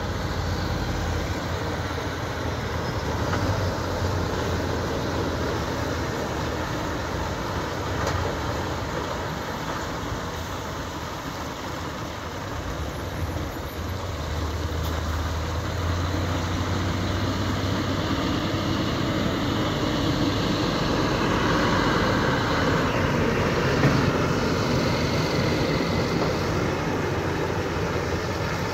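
Heavy prime-mover trucks pulling multi-axle low-loader trailers laden with train cars roll slowly past: diesel engines running with a low hum over the noise of many tyres, louder for a few seconds near the end as a truck passes close.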